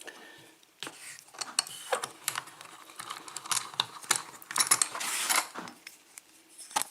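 Quick, irregular metallic clicks and clatter of a freshly picked padlock and its picking tools being handled, with a denser rattle about five seconds in.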